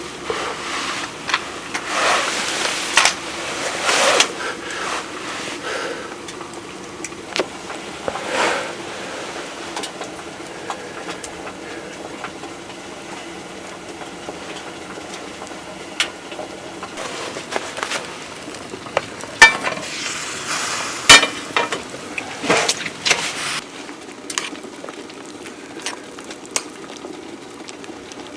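Food sizzling in a pan while a utensil stirs it, with irregular scrapes and clinks of metal against the pan, two sharper knocks a little past the middle.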